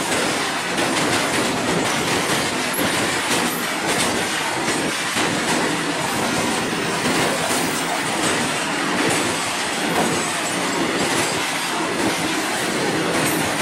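BTPN bogie tank wagons of a freight train running past at speed, close by: steady wheel-on-rail noise with light knocks from the wheels and bogies.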